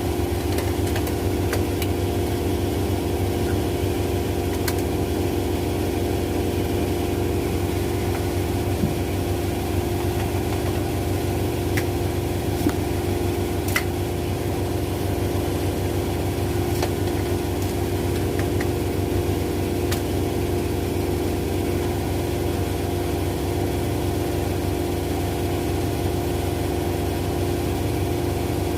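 An LG Centum and a Zanussi washing machine spinning side by side: a steady drum-and-motor drone at an even speed, with a few faint clicks.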